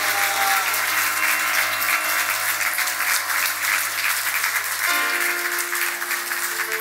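A large audience applauding steadily, with music playing underneath in held chords that change to a new chord about five seconds in.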